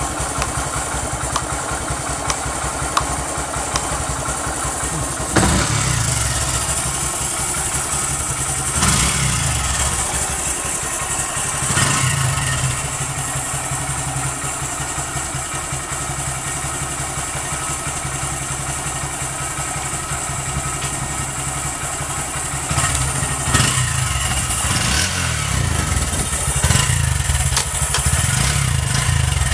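Honda Grom (JC75) 125 cc single-cylinder motorcycle engine idling steadily, with the throttle blipped briefly about five seconds in, again near nine and twelve seconds, and several times near the end.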